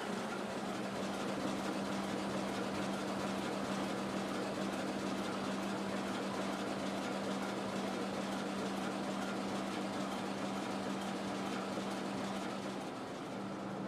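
Locomotive running at a standstill: a steady mechanical hum with one constant tone, easing briefly near the end.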